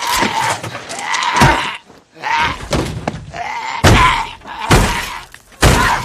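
Four heavy thuds with breaking glass as a walker batters and smashes a van's side window, with a wavering moan-like tone between the blows.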